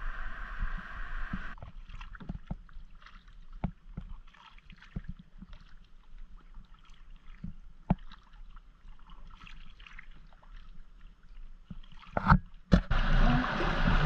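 Kayak paddles dipping and dripping on calm water, with scattered light knocks of paddles and gear against an inflatable kayak's hull. Two sharp louder knocks come near the end, followed by a louder steady rush of moving air and water.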